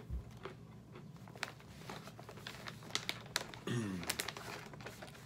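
A plastic snack pouch crinkling as it is handled by hand: a run of crisp crinkles and clicks, with a low thump at the start and a brief low hum of a man's voice about two-thirds of the way through.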